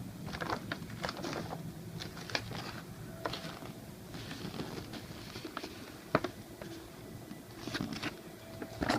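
Paper instruction sheet being handled: scattered light rustles and small clicks, with one sharper click about six seconds in.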